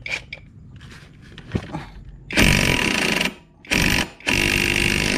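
Cordless impact wrench hammering in three bursts, starting about halfway in, loosening the drive pulley (variator) nut on a scooter's belt-drive transmission. A few light clicks of tool handling come before it.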